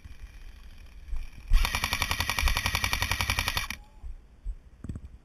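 Airsoft electric rifle firing one full-auto burst of about two seconds, starting about a second and a half in. The gearbox cycles at about fourteen shots a second.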